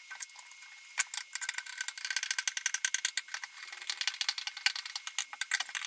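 A ratcheting screwdriver clicks rapidly and irregularly as it turns a screw in a bronze rudder collar, starting about a second in.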